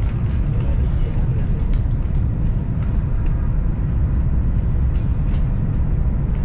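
Steady low rumble of a moving passenger train heard from inside the carriage, with a few faint clicks along the way.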